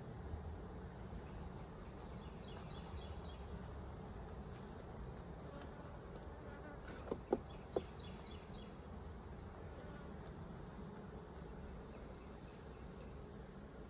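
Honeybees buzzing steadily around an open hive. About seven seconds in come a few sharp knocks from the metal hive tool working the wooden frames.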